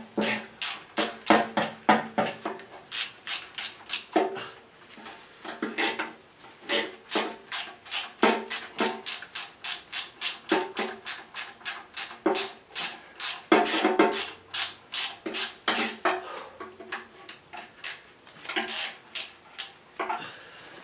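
Socket ratchet clicking in quick repeated strokes, about two to three a second, with a few short pauses.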